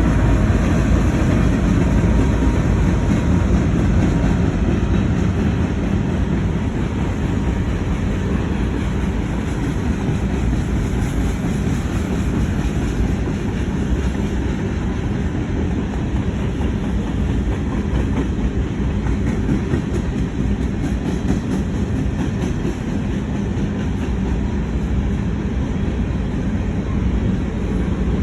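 CN freight train rolling past, a steady rumble of steel wheels on the rails.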